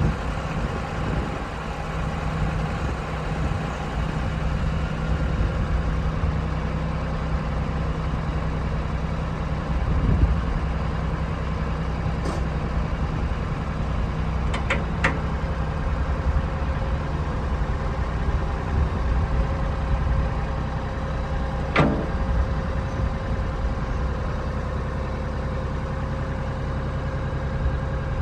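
Kioti CK3510SE compact tractor's diesel engine running steadily, with a few sharp clicks around the middle.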